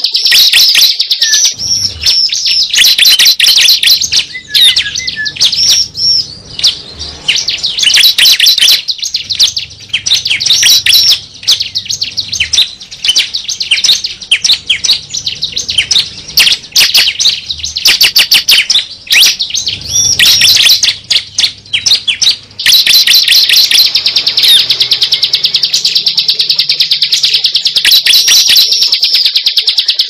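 Recorded prinia (ciblek) calls played as a lure: a rapid run of sharp, high chirps, which about three quarters of the way through turns into a continuous fast trill.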